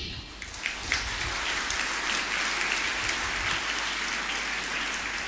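Audience applauding: many hands clapping, building within the first second and then holding steady.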